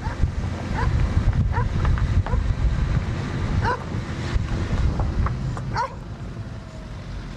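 Wind buffeting the microphone from a moving car, a heavy low rumble, with a short rising chirp repeating about every three-quarters of a second.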